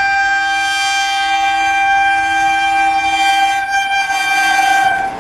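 Electric locomotive's horn sounding one long, steady blast, a low note and a higher note together, stopping shortly before the end.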